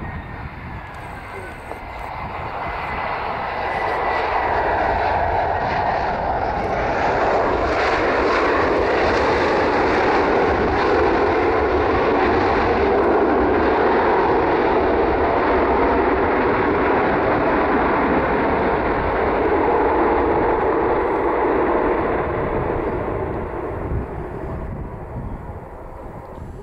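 Jet engines of an Airbus A320-214, CFM56 turbofans, roaring as the airliner touches down and rolls out on the runway. The roar builds over the first few seconds, holds loud and steady, then fades near the end as the aircraft rolls away.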